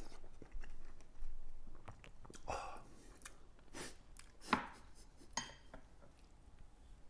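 A person eating soup with rice mixed in, chewing between spoonfuls, with a few short sips and several sharp clicks of utensils against the dish.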